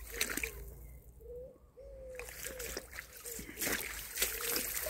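Footsteps wading through a shallow, gravel-bottomed stream, each step splashing and sloshing the water, with a brief lull about a second in.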